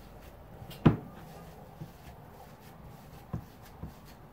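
A gloved hand mixing and pressing grated-cauliflower pizza dough in a glass bowl, with soft rubbing and squishing. There is a sharp knock about a second in and a lighter one a little past three seconds.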